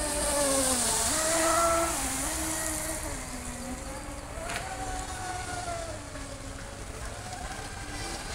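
Radio-controlled speedboat motor whining as the boat runs across the water, its pitch rising and falling with throttle and turns, with a hiss of spray loudest in the first couple of seconds. A brief click about halfway through.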